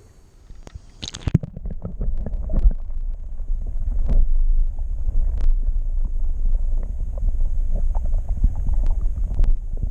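A splash about a second in as the camera goes under the water, then the muffled low rumble of water moving around the submerged camera, with scattered knocks.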